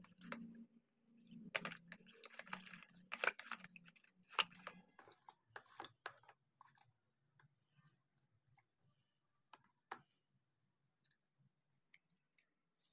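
Toothbrush bristles scrubbing a plastic phone case in a plastic tub: quick scratchy strokes, busiest in the first five seconds, then a few scattered clicks and taps.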